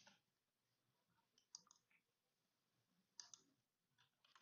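Faint clicking of a computer keyboard and mouse, in a few short clusters of clicks.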